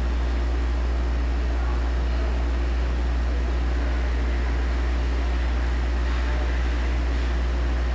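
Steady low hum with a constant hiss: room noise picked up by a security camera's microphone.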